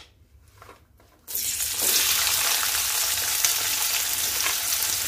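Sliced onions dropped into hot oil in a kadhai: a sudden loud sizzle starts about a second in and carries on as steady frying.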